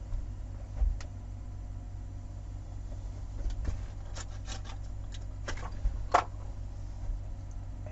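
A few short plastic clicks and light knocks from handling a TV remote control as batteries are fitted, over a steady low hum. The loudest click comes about six seconds in.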